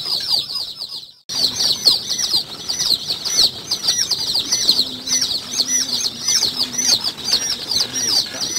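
A large flock of day-old kampung chicks peeping nonstop, many high cheeps overlapping densely. The sound cuts out for a moment about a second in.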